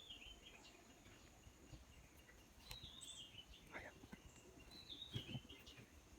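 Near silence with faint outdoor background: a bird repeating a short falling song phrase about every two seconds over a steady faint high insect drone, with a couple of faint knocks about four to five seconds in.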